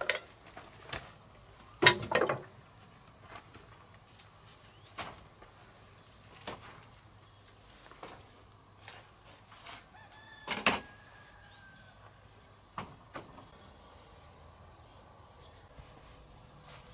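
Irregular knocks and clicks, with a louder clattering cluster about two seconds in and another near eleven seconds, over a steady high-pitched drone.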